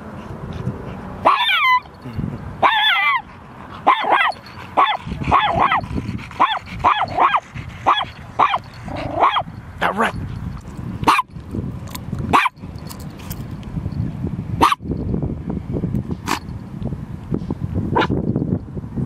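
Chihuahua barking: two drawn-out yelps that fall in pitch, then a quick run of high yaps about two a second that stops about halfway through. A few scattered sharp clicks follow.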